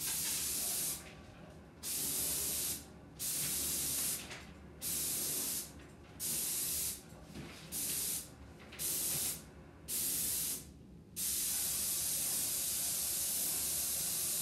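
Graco Ultra Max II 490 PC Pro electric airless paint sprayer gun spraying primer as a hiss that starts and stops sharply with each trigger pull. About nine bursts of roughly a second each are followed by one held for about three seconds near the end.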